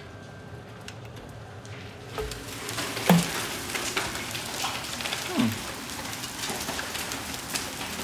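Hailstones mixed with rain pattering on stone paving, turning much louder and crisper about two seconds in as a door opens onto it. A sharp click about three seconds in and a short falling tone near the end stand out over the patter.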